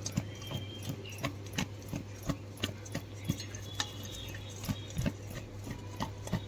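Paneer cubes being mixed with maida and cornflour in a bowl: light, irregular clicks and taps against the bowl, roughly two or three a second.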